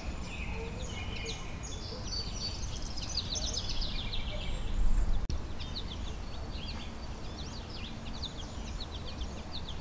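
American goldfinches twittering and chirping, a rapid jumble of short high notes throughout, densest about three to four seconds in. A brief low rumble about five seconds in.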